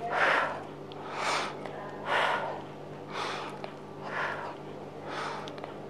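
A woman breathing audibly in a steady rhythm, about one breath a second, paced to her repetitions of alternating lying dumbbell triceps extensions.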